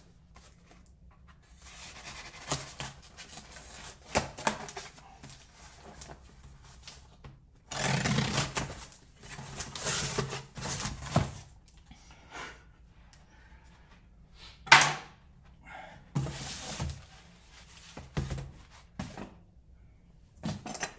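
Cardboard shipping box being cut open with a utility knife and its flaps pulled open: scraping and rustling of tape and cardboard in irregular bursts, with one sharp knock about two-thirds of the way through.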